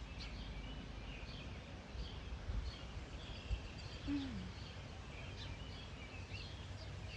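Small birds chirping and calling repeatedly over a steady low outdoor rumble, with one brief low falling sound just after four seconds in.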